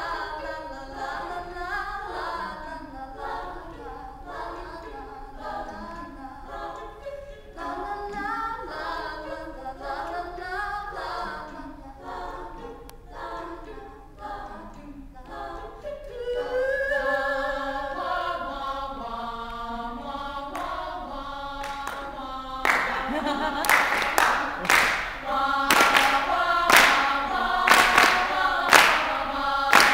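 Women's a cappella group singing in close harmony with no instruments. About three-quarters of the way through the singing gets louder and the singers start clapping steadily in time, roughly three claps every two seconds.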